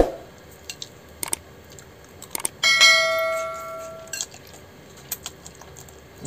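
Metal cutlery clinking against a dish. About two and a half seconds in, one strike sets the dish ringing with a clear, bell-like tone that fades over about a second and a half.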